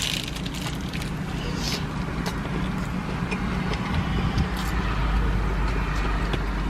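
Steady low hum of a car's engine and air conditioning running, heard from inside the cabin, with a few faint clicks and rustles of eating.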